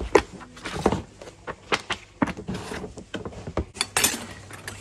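Irregular knocks and clatter of items being handled and rummaged through: books shifted about in a plastic storage tub, then silver-plated cutlery and metalware clinking in a cardboard box near the end.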